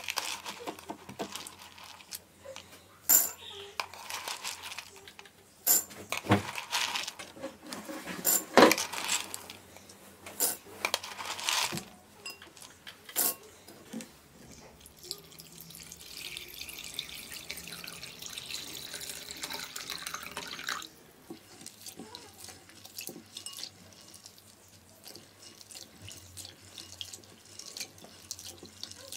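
Metal spoon clinking against glass as pumpkin seeds are scooped from a glass jar and dropped into a glass bowl, with several sharp knocks. Then water pours steadily into the bowl for about five seconds and stops suddenly, and the seeds are swished and rubbed by hand in the water.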